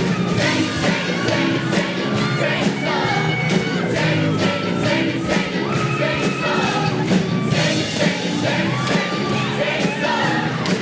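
Show choir singing with live band accompaniment and a steady beat.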